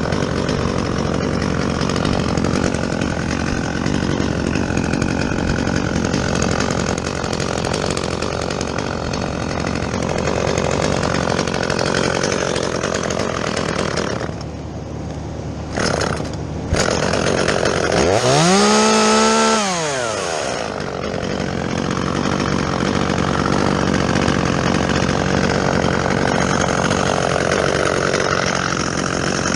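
Chainsaw running and cutting through fir wood, its engine held at high speed under load. About two-thirds of the way through it drops back briefly, then revs up and falls again before going back into the cut.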